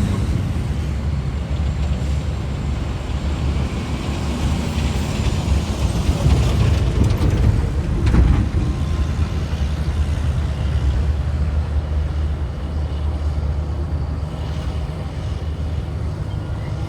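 Komatsu D275AX bulldozer working, its diesel engine running steadily under load, with a sharp clank about eight seconds in.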